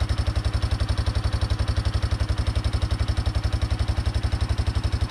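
Yamaha Moto-4 350 ATV's single-cylinder four-stroke engine idling steadily, an even beat of about ten firing pulses a second, running with its body plastics still off.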